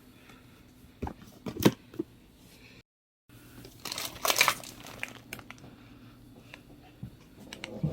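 Toiletries and their packaging being handled: a few sharp knocks and clicks, then a short crinkling rustle a little over a second later, with small ticks of items being set down. The sound cuts out completely for about half a second near the middle, an edit in the audio.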